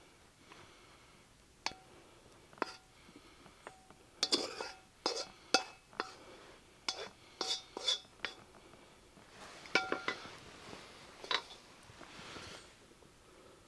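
Spatula scraping and knocking against a metal wok as stir-fried chicken and vegetables are pushed out onto a plate: a run of sharp clinks and scrapes, some of them ringing briefly.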